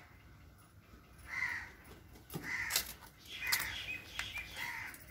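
A crow cawing several times in short, hoarse calls. Around the middle come a few sharp clicks and scrapes of a plate scooping soil in a plastic basin.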